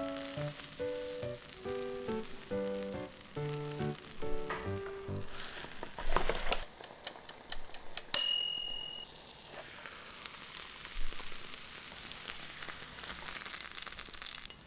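Croissant sizzling and crackling in a hot waffle maker, with a short electronic beep from the waffle maker's timer about eight seconds in. Light background music plays over the first few seconds.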